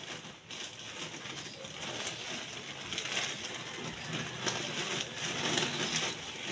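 A pan of broth or sauce cooking on the stove, giving a steady sizzling hiss.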